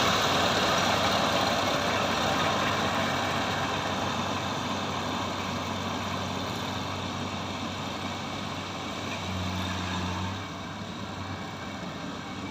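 Combine harvester engine running steadily in a rice paddy, slowly growing fainter, with its low hum swelling briefly about three-quarters of the way through.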